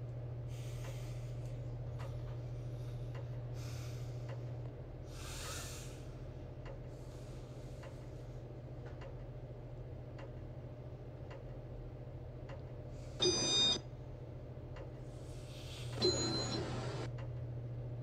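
Casablanca Victorian ceiling fan's XLP motor humming steadily with faint ticks, going through its speeds in demo mode: the hum drops about five seconds in and comes back near the end. Two brief louder noises break in a little before the end.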